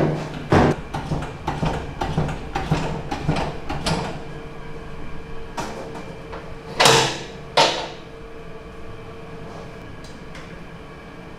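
Stainless-steel paddle mixer with sundae filling of noodles and vegetables: irregular knocks and clatter for the first few seconds over a steady hum. About seven seconds in come two loud noises a little under a second apart as the mixing trough is tilted by hand, and after that only the steady hum.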